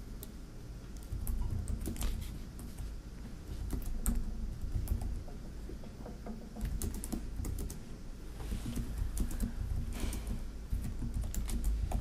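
Irregular light clicks and taps of typing on a laptop keyboard, over a steady low room rumble.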